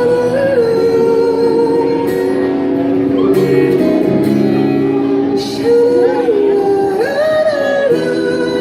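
Live band music with singing: a sustained, wavering vocal line over electric guitar chords, the closing stretch of a pop-rock song.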